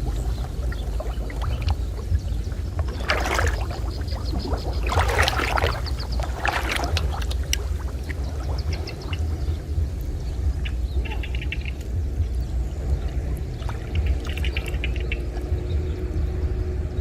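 Water splashing and sloshing, with a run of louder splashes about three to seven seconds in, over a steady low rumble.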